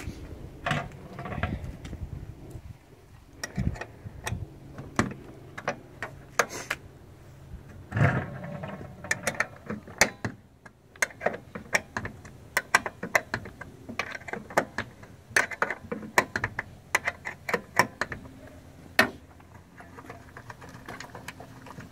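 A 12 mm wrench and bolts clicking and clinking against each other in irregular short taps, with a few louder knocks, as the bolts holding a minivan sliding door's center roller mechanism are loosened and taken out.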